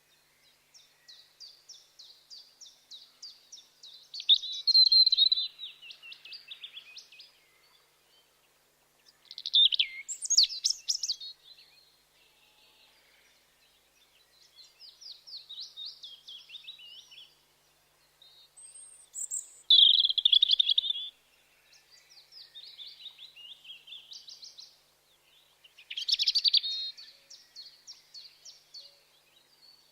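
European robin singing: a series of high, fast, warbling phrases, each a few seconds long, separated by short pauses.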